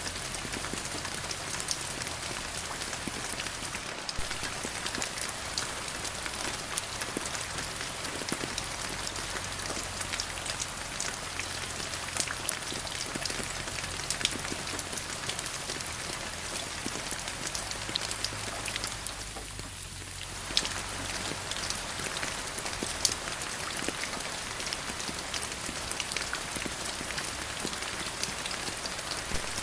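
Steady rain falling, with many separate drops striking close by over the even wash of the shower. The sound softens briefly about twenty seconds in, then returns as before.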